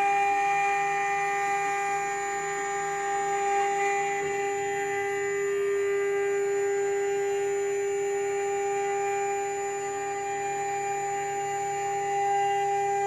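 Multi-head CNC wood engraving router running, its row of spindles giving a steady high-pitched whine made of several held tones.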